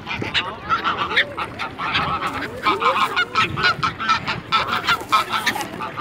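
Geese honking over and over, many short calls overlapping.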